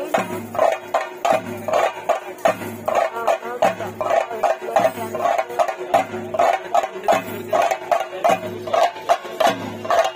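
Ritual drumming for a theyyam: chenda drums beaten in a steady, fast rhythm of about three strokes a second, with deeper thumps underneath and a single held note sounding throughout.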